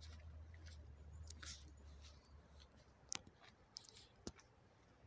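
Near silence, with a faint low hum that fades out about halfway through and a few faint sharp clicks.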